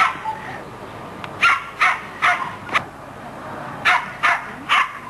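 Plummer terrier barking: one bark at the start, then a run of four sharp barks, a short pause, and three more.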